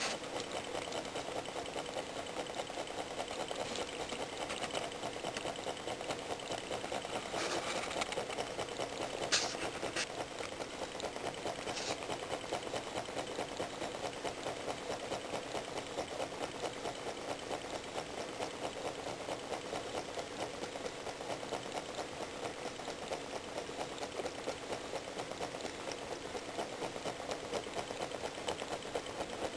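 Small homemade Stirling engine with a disc flywheel running, making a rapid, steady mechanical clatter. A few sharper ticks stand out about a third of the way in.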